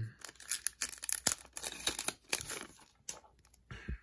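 Foil wrapper of a hockey card pack crinkling and tearing as the cards are pulled out of it: a dense run of crackles that mostly stops about three seconds in, with a few more near the end.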